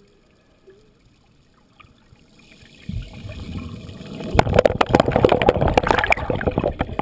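Underwater rush of churning water as a humpback whale lunges through a school of baitfish past the camera. It builds from about three seconds in to a loud, dense crackle of sharp ticks over the rush.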